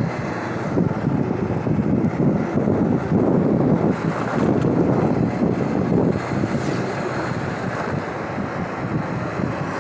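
Wind buffeting the microphone on a moving motorbike, with the bike's running and road noise underneath.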